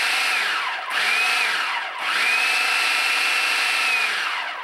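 Food processor motor pulsed on and off, chopping whole grain bread into fine crumbs: a steady whine that slides down in pitch each time it is released. One pulse winds down just before a second in, a short pulse follows, then a longer one from about two seconds in spins down near the end.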